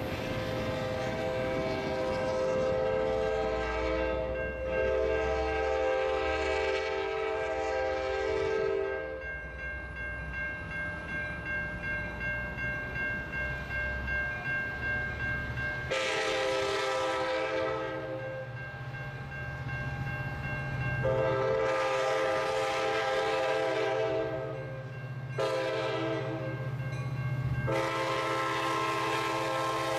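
Sounder commuter train's F59PHI diesel locomotive sounding its multi-chime air horn as it approaches a grade crossing. A long blast opens, then after a pause come the crossing signal's blasts: long, long, short, long. Between the blasts a crossing bell rings with a steady pulse, and the locomotive's engine hum grows louder as it nears.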